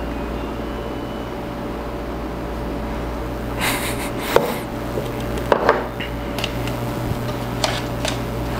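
A steady low hum throughout. In the second half come a few short knocks, clicks and rustles as a glass of cappuccino is handled and set down on a countertop.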